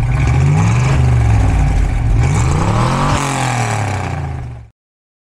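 Mercedes-Benz 500 SLC's 5.0-litre V8 running and being revved twice, the second a longer climb in pitch and fall about two to three seconds in. It cuts off abruptly near the end.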